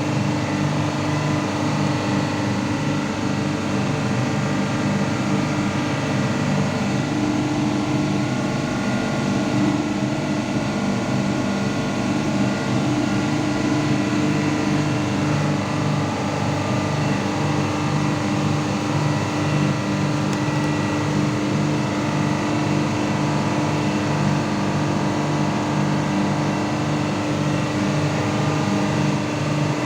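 Marine diesel engine machinery running steadily, a constant loud drone with a steady hum and no let-up.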